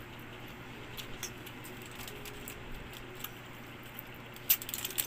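Someone eating roast chicken by hand: scattered faint clicks and smacks of chewing and pulling at the meat, with a quick run of sharp clicks about four and a half seconds in, over a steady low hum.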